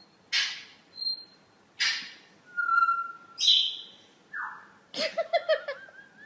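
A series of short bird-like calls: harsh squawks, a held whistle, a falling note and a quick warble, ending in a wavering whistle.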